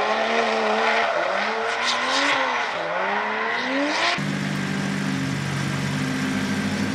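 GR86 drift car's 2JZ straight-six engine revving up and down through a drift, over tyre noise. About four seconds in it cuts to a steady engine idle.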